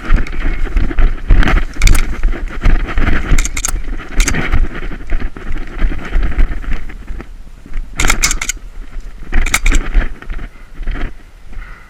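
Equipment rattling and scraping as a player moves, over a constant low rumble on the microphone. Several short sharp clacks come in small clusters, two of them close together about two thirds of the way through.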